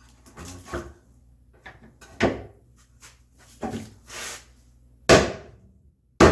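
Several separate wooden knocks and short scraping strokes from a combination plane being worked on a walnut board. The loudest come about two seconds in and near the end.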